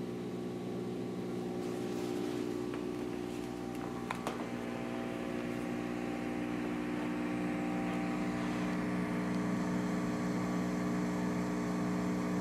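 Loudspeaker hum and hiss: the noise of a phono preamp's moving-coil gain stage, with the amplifier at maximum volume and no signal playing. It slowly grows louder, with a few faint clicks about two to four seconds in, and the hiss turns brighter in the last few seconds.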